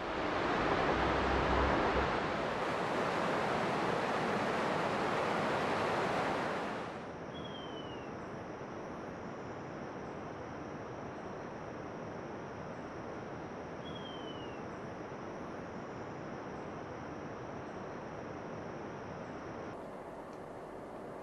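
Loud rushing water for about the first seven seconds. Then quieter forest ambience with a steady high hum, and a bird giving a short falling whistle twice, about six seconds apart.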